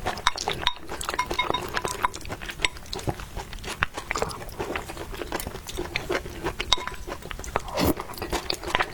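Close-miked eating: steady chewing and biting, a dense stream of small crunches and wet mouth clicks.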